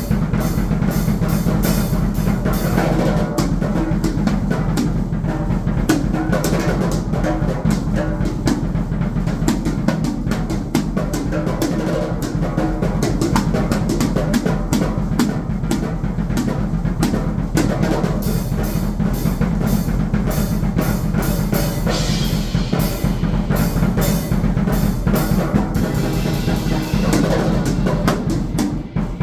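A drum kit played fast and without a break, with dense strikes on the bass drum, snare and cymbals.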